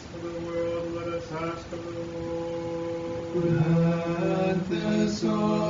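Unaccompanied monastic choir chanting an Orthodox vespers response in slow, sustained harmony. About three and a half seconds in, lower voices come in and the singing grows louder.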